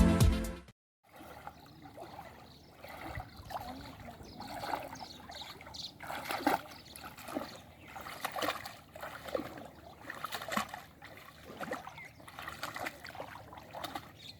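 Shallow floodwater splashing and trickling faintly in small, irregular bursts.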